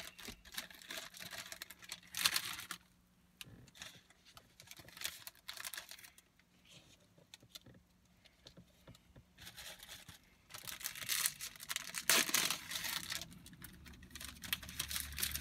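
Plastic wrapper of a Pokémon card pack crinkling and tearing as it is opened by hand, in several short rustling bursts with small clicks between them.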